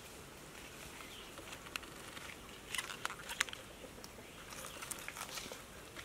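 Dragon fruits being handled and set down on a wooden table: soft rustles and a few light knocks, the sharpest a little after three seconds in.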